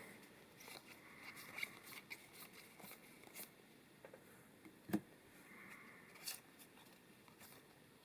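Faint handling of Magic: The Gathering trading cards: light rustling and scattered soft clicks as cards are slid and flipped, with a sharper click about five seconds in and another a second later.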